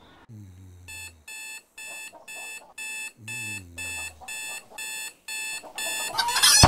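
Electronic alarm clock beeping in an even pulse, about two beeps a second, starting about a second in. A louder noisy sound rises near the end.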